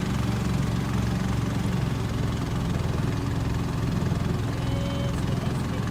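Boat engine running steadily: a low, even drone.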